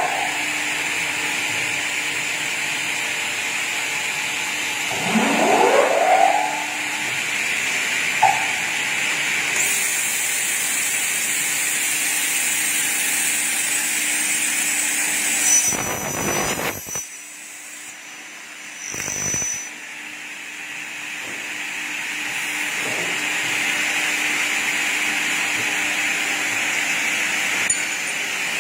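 Double-head aluminium cutting saw running with a steady mechanical noise. About five seconds in, a motor spins up with a rising whine. There is a stretch of hiss in the middle, then the noise briefly drops away and returns.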